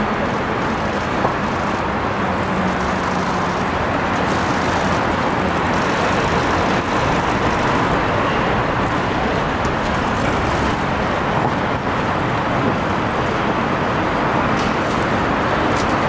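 Steady rushing outdoor background noise with no distinct events standing out.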